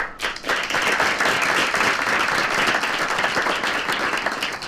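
Audience applauding, many hands clapping at once; the clapping swells quickly at the start and begins to thin out near the end.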